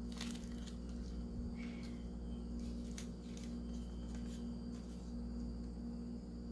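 Steady low hum with a few faint light clicks and taps.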